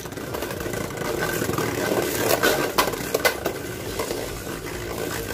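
Two Beyblade Burst spinning tops, one a Tornado Wyvern, whirring and scraping as they circle the plastic stadium floor, with a few sharp knocks around the middle as they strike each other or the stadium wall.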